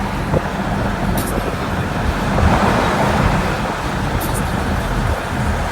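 Road and engine noise heard inside a car's cabin while driving in traffic: a steady rumble that swells briefly around the middle.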